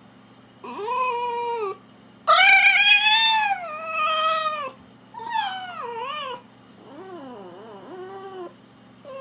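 An animal giving a series of drawn-out calls, each about a second or more long, wavering and gliding in pitch, the loudest starting about two seconds in and lasting over two seconds.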